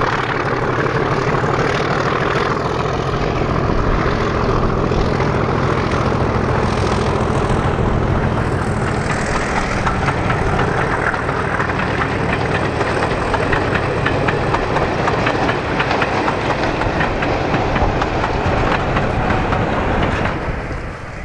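Diesel locomotive working hard as it hauls a passenger train past. Its engine dominates the first half; then the clickety-clack of the coach wheels over the rail joints takes over as the coaches roll by, fading near the end.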